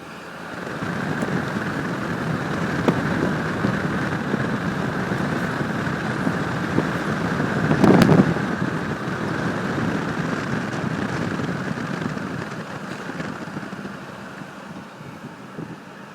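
A vehicle driving past, its noise swelling, loudest about eight seconds in, then fading away.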